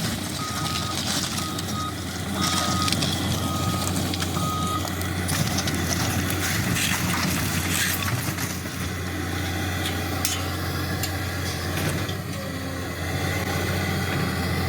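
Cat excavator's diesel engine running steadily, its travel alarm giving a string of short, high beeps during the first five seconds or so, with scattered knocks and crunches through the rest.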